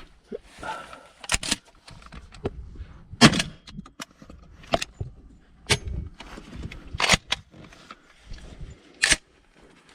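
Gunshots, about seven sharp reports at irregular spacing of one to two seconds, the loudest a little over three seconds in.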